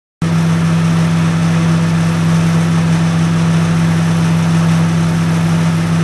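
Microwave oven running: a loud, steady electrical hum with a buzzy edge that switches on abruptly just after the start.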